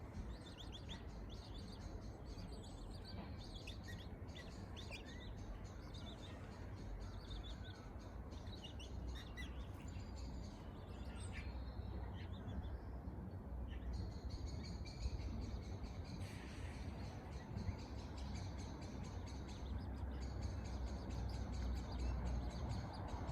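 Birds chirping in many short, high calls, thickest in the first half and sparser later, over a steady low rumble.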